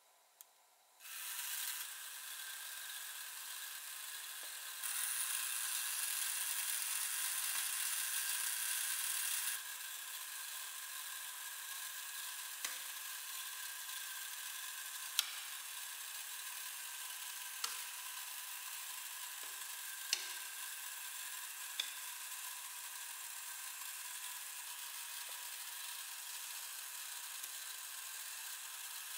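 Wind-up wooden automaton's clockwork of wooden gears running after being wound: a steady high mechanical whir, louder for a few seconds from about five seconds in, with several sharp clicks scattered through the rest.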